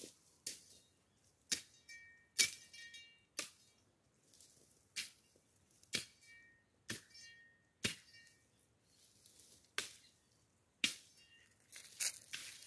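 Machete chopping dry brush: sharp strikes about once a second, a few of them followed by a brief high metallic ring from the blade.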